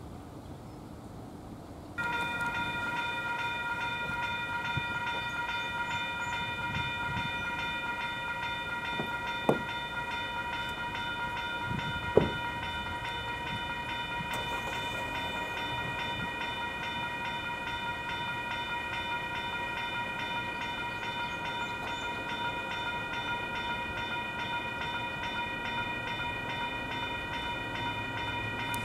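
A railroad grade-crossing warning bell switches on about two seconds in and keeps ringing steadily, a high ringing tone. Two sharp clicks are heard later, about three seconds apart.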